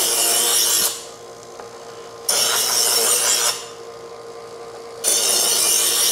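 Wüsthof electric knife sharpener running with a steady hum while a chef's knife blade is drawn through its grinding slots. Each pass gives a loud hissing grind of about a second and a half, repeating every two and a half seconds or so.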